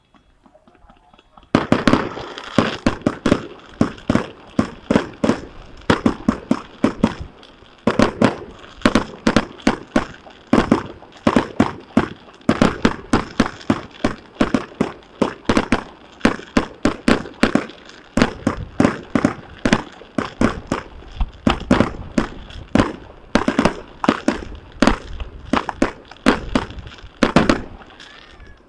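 Aerial fireworks bursting in a rapid run of sharp bangs, several a second, starting about a second and a half in and stopping just before the end.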